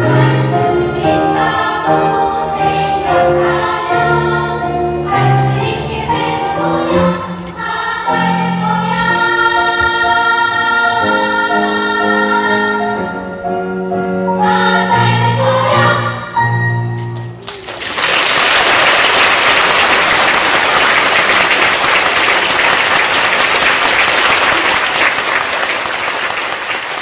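Youth choir singing the final phrases of a song with instrumental accompaniment, closing on a long held chord about 17 seconds in. The audience then breaks into applause, which carries on to the end.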